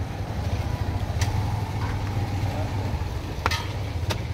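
Steady low rumble of an idling engine, with three sharp clicks over it.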